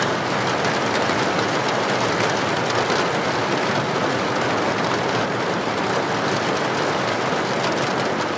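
Steady rain falling, a dense, even patter with no thunder.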